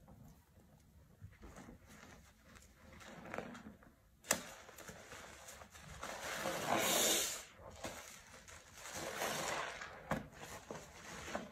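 A sponge being squeezed and swished through soapy, foamy water in a sink: wet squelching and sloshing, with a sharp click about four seconds in and the loudest squelch a little before the end.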